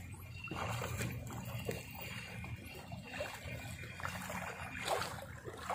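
Seawater lapping and splashing softly at the shoreline, in irregular small slaps over a steady low rumble.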